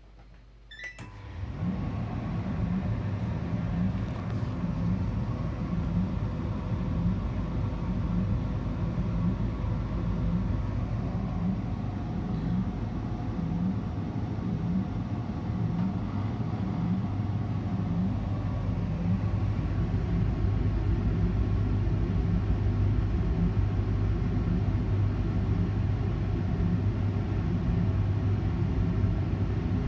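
Gorenje DA82IL tumble dryer starting up about a second in, then running with a steady low hum and a cyclic noise that comes once per drum revolution, about once a second. The machine is new, and this hum comes only while the drum turns.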